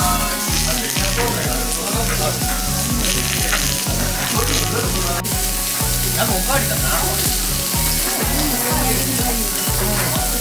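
Raw lamb sizzling steadily on a charcoal grill, with background music carrying a repeating bass line underneath.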